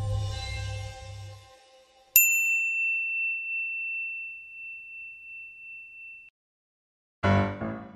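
Music fades out, then a single bright bell-like ding rings out high and clear, decaying slowly over about four seconds. Piano music starts near the end.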